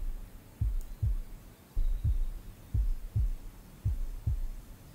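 Slow heartbeat, a low double thump (lub-dub) repeating evenly about once every 1.1 seconds, around 55 beats a minute.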